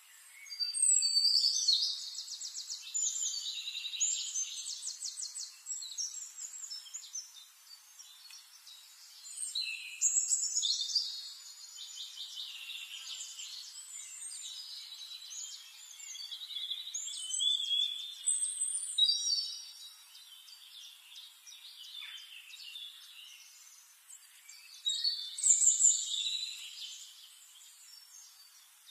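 Songbird singing: long, complex phrases of high chirps and fast trills about every eight seconds, with softer chirping in between.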